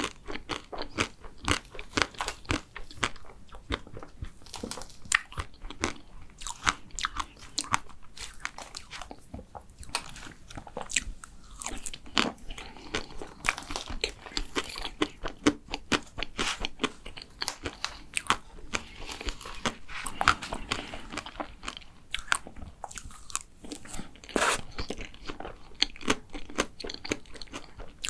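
Close-miked chewing of a chocolate macaron: crisp shell crunching and many sticky, wet mouth clicks in an uneven stream.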